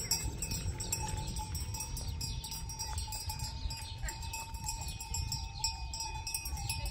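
Bells on a herd of goats jingling and ringing steadily as the animals move about, over a steady low rumble.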